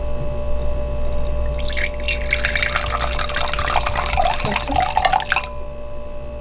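Red wine poured from a bottle into a stemless glass: a splashing, trickling pour that starts about a second and a half in and stops about a second before the end. A steady low hum runs underneath.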